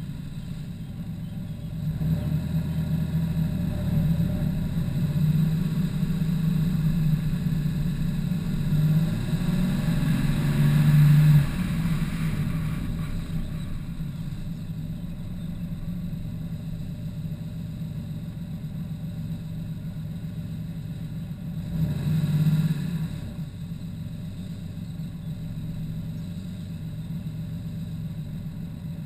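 Car engine under way, heard from a camera on the car's roof: it pulls harder from about two seconds in, is loudest just past ten seconds, then eases off. A second short surge a little past twenty seconds, then steady low running as the car slows.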